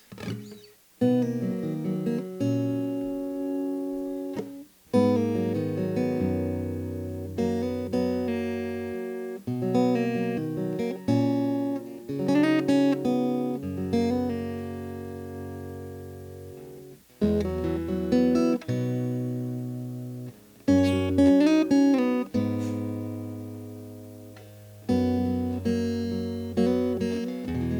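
Guitar played clean and dry with the effects pedal off: chords picked and left to ring, a new chord every few seconds with short breaks between phrases.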